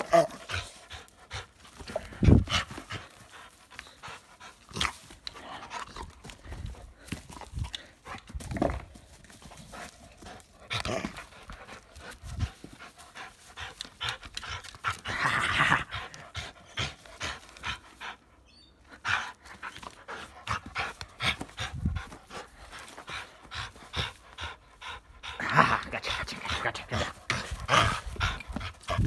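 Dog panting hard while tugging on a rubber ring toy in a game of tug-of-war, with irregular bumps and rustles from the struggle.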